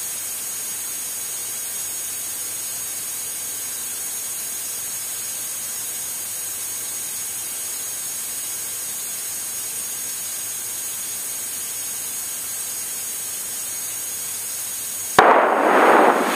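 Steady hiss of a light twin's cockpit intercom and radio audio feed during the climb, with no voices on it. About fifteen seconds in, a loud burst of noise starts abruptly, lasts about a second and a half and cuts off just as sharply.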